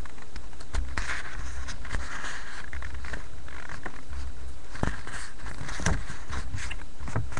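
Trading cards handled slowly by hand: soft sliding and rubbing of card against card, with scattered small clicks, over a steady low hum.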